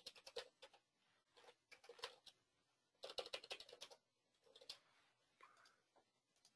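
Faint computer keyboard typing: a few short runs of keystrokes with pauses between them.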